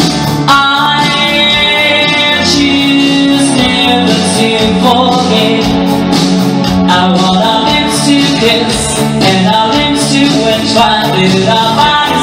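A singer performing live into a microphone over guitar-led music with a steady beat, the voice coming in about half a second in.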